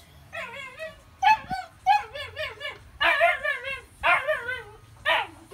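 A dog whining and yelping in a series of short, high cries, roughly one a second, each wavering up and down in pitch.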